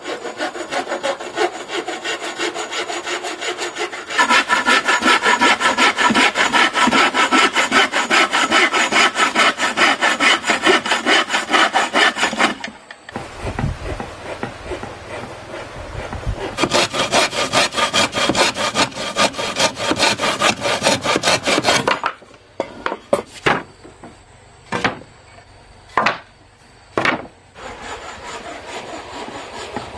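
Hand saw cutting through wooden boards with quick, even back-and-forth strokes, in two long spells with a short break between them. Near the end come a handful of separate sharp knocks.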